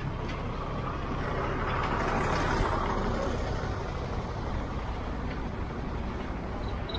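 A road vehicle passing, its noise swelling to a peak about two and a half seconds in and then fading, over a steady low rumble.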